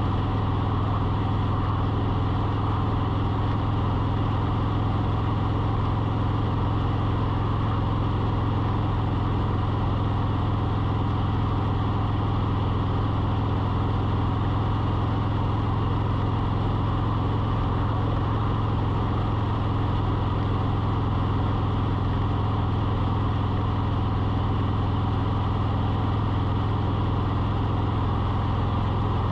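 A steady, unchanging low mechanical hum of a running engine or motor, with no change in pitch or level.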